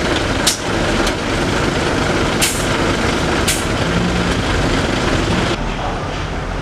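Heavy diesel truck engine running under load as the orange Fuso tanker struggles across a slippery mud road. Several short, sharp hisses cut through the engine sound during the first few seconds, and the background changes about two-thirds of the way in.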